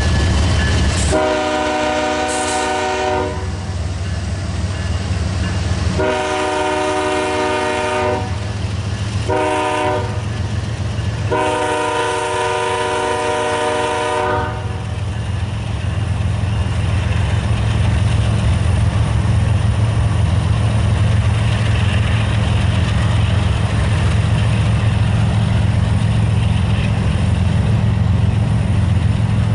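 Freight locomotive's multi-note air horn sounding the grade-crossing signal: two long blasts, one short, then a final long blast. Under it the train rumbles steadily, continuing on its own after the horn stops.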